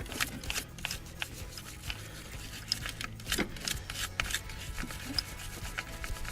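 Irregular clicks and scraping of a hand tool working a battery cable terminal onto its post.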